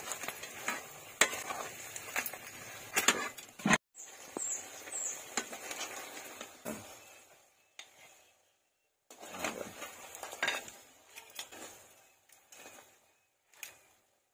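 A spatula scraping and clacking against a wok as crabs and shrimp are stirred in a sizzling sauce and scooped onto a plate. The sound cuts out abruptly a few times.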